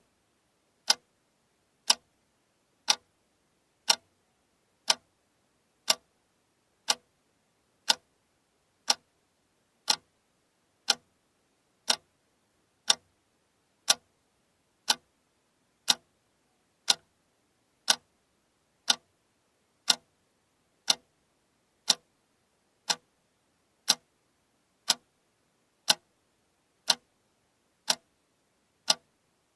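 Alarm clock ticking, one sharp, even tick every second.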